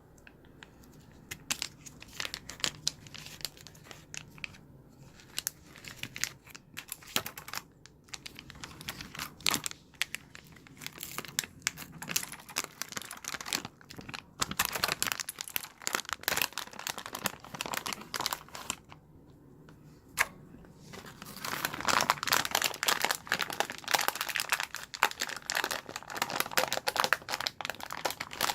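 Keyboard being cleaned with a jelly cleaning gel: irregular crinkling and crackling with many small clicks, coming in bursts and busiest from about 21 seconds in.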